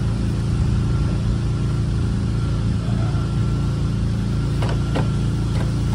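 Steady low mechanical hum of a running motor, made of several even tones, with a couple of brief clicks near the end.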